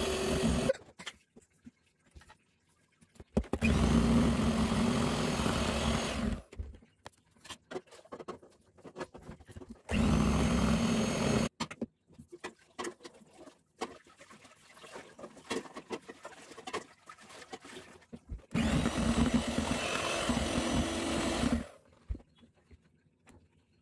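Electric hand mixer whipping a white mixture in a bowl, its motor and beaters running in several separate bursts of one to three seconds, with quieter gaps of light clicks and knocks in between. The mixture is beaten from a thin froth to thick, glossy peaks.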